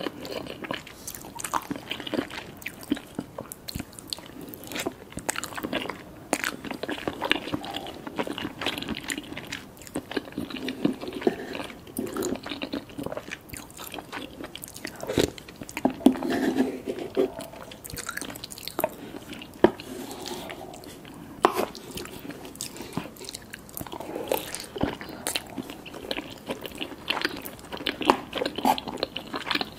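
Close-miked eating: crunchy bites and steady chewing, with a few louder sharp crunches in the middle.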